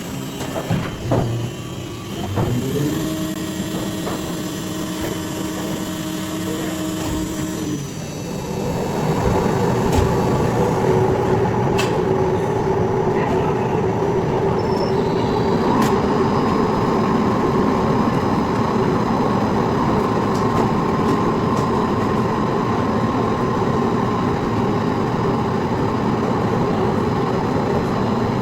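Plastic-recycling factory machinery: a motor spins up with a rising hum among clicks and knocks. Then, about eight seconds in, a louder machine starts and keeps running with a steady, dense hum.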